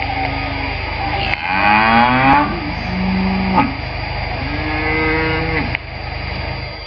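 Cows mooing: about four separate moos, one sliding upward in pitch partway through.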